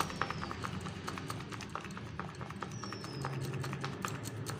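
Irregular light clicks and taps of a spoon as chaat masala is shaken out over boiled corn kernels in a steel bowl, over a low steady hum.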